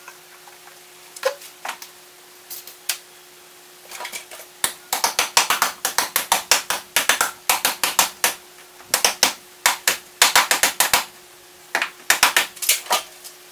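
Bursts of rapid, sharp clicking and tapping, several a second, starting about four and a half seconds in and stopping and restarting a few times, over a faint steady hum.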